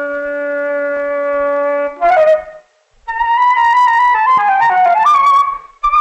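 Film-score music on wind instruments: a long held low note, a brief pause, then a wandering melody in a higher register that steps downward and leaps back up near the end.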